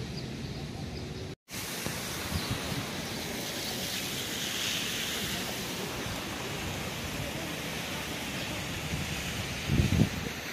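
Steady rushing outdoor noise that cuts out for an instant about a second and a half in, with a brief low thump near the end.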